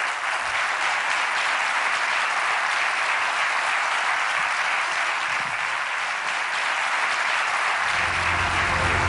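Auditorium audience applauding steadily. Music comes in about eight seconds in, under the clapping.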